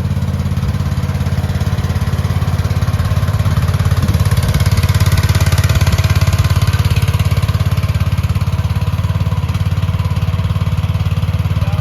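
AGT H15 mini excavator's engine running steadily with an even pulsing note, a little louder and with more hiss around the middle of the stretch.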